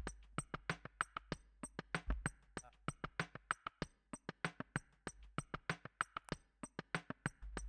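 Quiet music with a fast, steady ticking beat.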